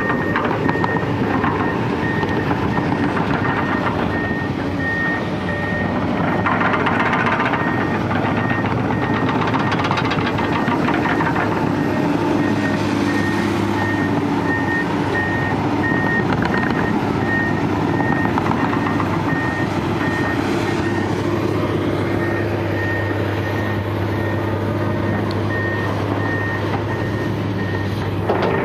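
Komatsu PC200 hydraulic excavator's diesel engine running under working load, swelling louder a few times in the first half. Over it, a backup alarm beeps at about two beeps a second.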